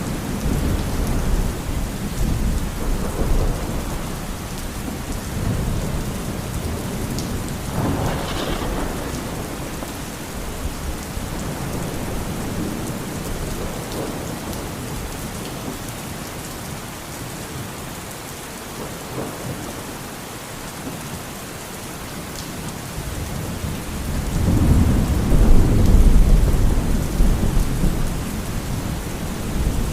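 Steady rain with rolling thunder. A sharper crack comes about a quarter of the way in, and a louder, deep rumble of thunder builds and fades near the end.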